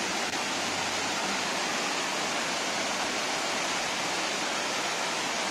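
Waterfall cascading down stepped rock ledges: a steady, even rush of falling water.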